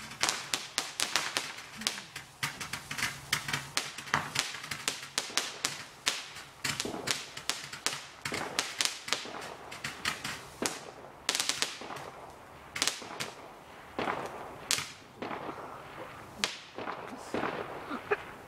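Firework going off in a rapid run of sharp bangs and crackles, several a second, thinning out to scattered cracks toward the end.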